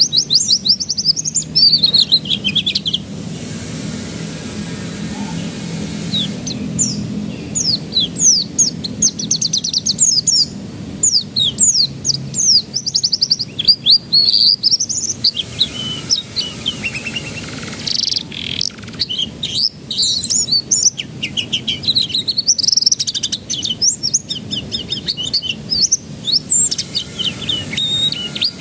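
Domestic canary singing: long runs of fast, repeated down-slurred trills and rolls, broken by two short pauses, one a few seconds in and one around the middle.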